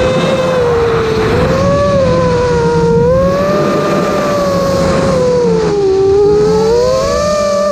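FPV quadcopter's brushless motors whining loudly. The pitch rises and falls several times with the throttle, dipping lowest about six seconds in before climbing again.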